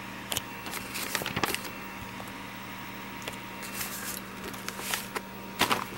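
Paper and a manila envelope rustling and crinkling in several short bursts as they are handled, over a steady low electrical hum.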